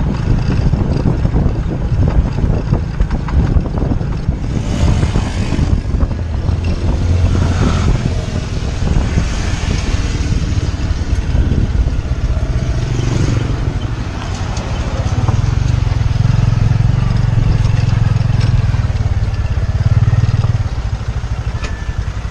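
Motorcycle-drawn tuk-tuk on the move: the motorcycle's engine runs steadily under a constant low rumble of wind and road noise, heard from the open passenger carriage.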